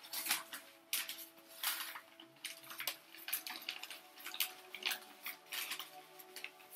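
Newspaper wrapping crinkling and rustling by hand in irregular bursts as a plant cutting is unwrapped.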